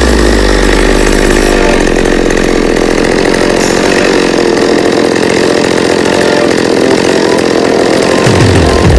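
McCulloch Pro Mac 610 two-stroke chainsaw engine idling steadily just after a cold start, its speed climbing in the last second.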